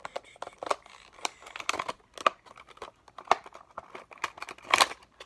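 Stiff plastic blister packaging of a fishing lure being crinkled and torn open by hand: a run of irregular crackles and cracks, the loudest near the end.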